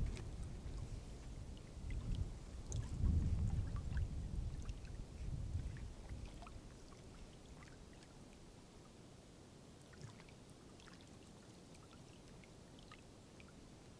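Wind gusting over the microphone for the first several seconds, dying away about halfway through, with small waves lapping and trickling against a rock shoreline.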